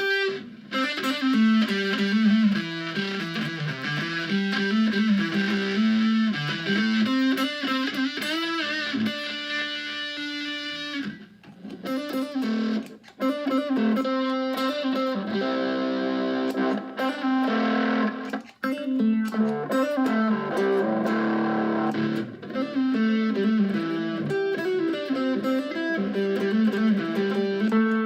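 Fender Stratocaster electric guitar playing a melodic line of single notes through effects pedals, with short breaks between phrases.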